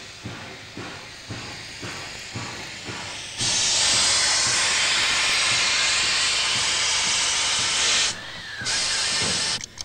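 Steam hissing loudly and steadily from an AB-class steam locomotive, starting abruptly a few seconds in, dropping out briefly and cutting off near the end. Before the hiss, a regular ticking about twice a second.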